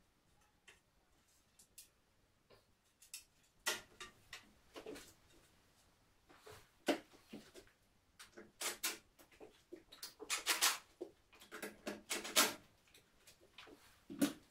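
Irregular clicks, scrapes and light knocks as IKEA KRABB mirror panels and their mounting clips are handled and adjusted against the wall. The sounds are sparse at first and come thick and fast from a few seconds in.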